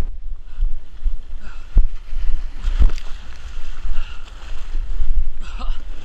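Wind and motion rumble on a body-worn action camera's microphone, with a few sharp knocks as the wearer scrambles over dirt mounds.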